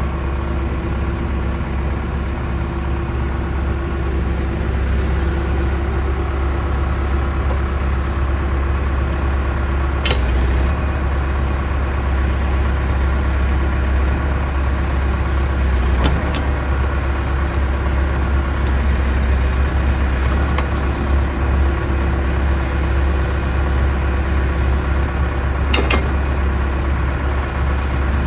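John Deere backhoe loader's diesel engine running steadily while the backhoe's hydraulic boom and bucket are worked. Three short, sharp clunks come through: about a third of the way in, just past halfway, and near the end.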